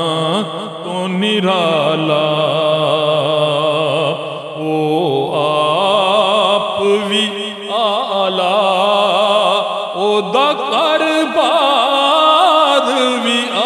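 A man's voice singing a Punjabi naat into a microphone in long, drawn-out notes that waver and glide in pitch.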